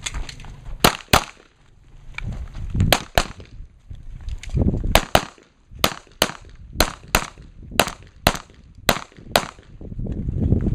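Competition handgun fired in rapid strings: about fifteen sharp shots, mostly as quick pairs a few tenths of a second apart, with a gap of a second or more between pairs as the shooter moves between targets.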